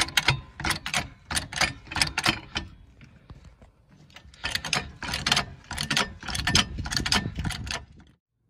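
Hydraulic trolley jack being pumped to raise a car: quick metallic clacking, about three a second, in two runs with a short pause about three seconds in.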